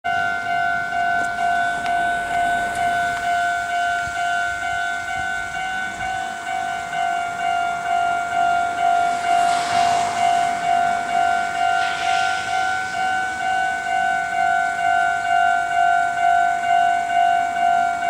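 Japanese level-crossing electronic warning bell ringing in a steady repeating ding, about two strikes a second, signalling an approaching train while the barrier arms come down. Two brief faint rushing sounds come about ten and twelve seconds in.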